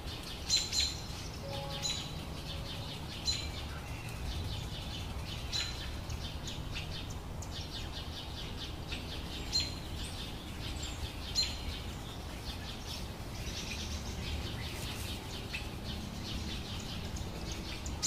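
Birds chirping: short, sharp calls repeating every second or two over a steady low background rumble.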